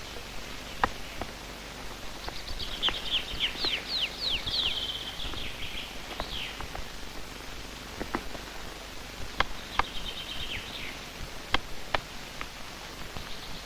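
Sharp single knocks at irregular intervals: a great spotted woodpecker hammering at a hazelnut wedged in a tree to crack it. A songbird sings twice over it, with quick falling whistled notes ending in a trill.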